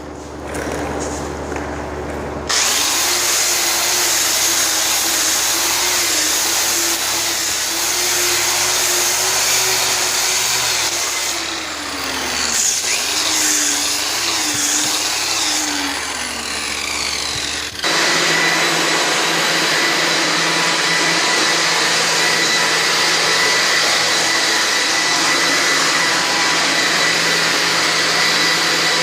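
Vacuum cleaner running while cleaning the concrete floor before priming. It starts suddenly with a motor pitch that wavers and dips. About eighteen seconds in, it shifts abruptly to a steadier, lower hum.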